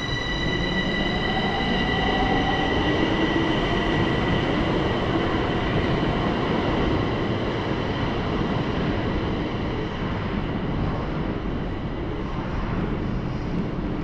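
Bucharest metro train pulling out of an underground station: a rising whine as it speeds up over its running rumble, which then fades as the train draws away down the tunnel.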